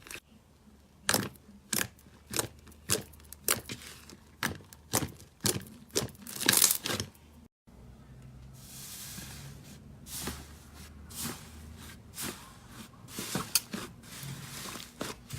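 Slime being squished and pressed by hand, giving a quick series of sharp crackling pops and clicks. About halfway through it drops out briefly. Softer, sparser crackles follow over a low steady hum.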